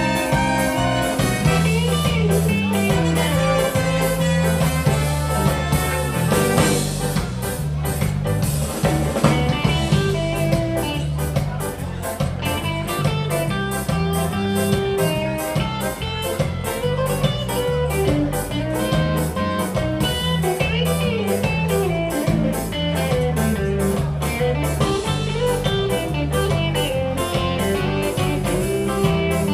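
Ska band playing live: drums, bass, electric guitar and keyboards with a horn section of saxophones, trumpet and trombone, to a steady, even beat.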